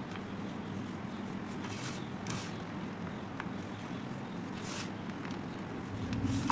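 Hands mixing dry Holi colour powder and sand in a steel bowl: a soft, gritty rustling and crunching as the powder is scooped and crumbled between the fingers. A couple of brighter hissy swishes come about two seconds in and again near five seconds, over a low steady hum.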